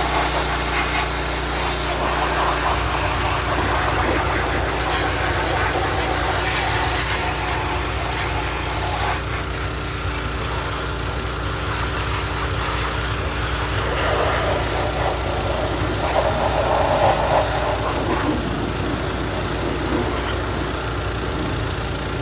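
Hot water pressure washer running, its engine droning steadily while the high-pressure spray hisses, the hiss coming and going as the wand washes grease off equipment.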